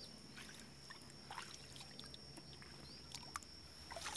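Quiet outdoor field ambience: a steady faint high-pitched whine with scattered small clicks and ticks.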